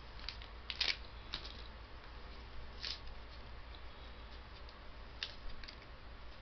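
A few short, sharp clicks and rustles of small things being handled: a cluster about a second in, another near three seconds and one past five seconds. A low steady hum lies under them.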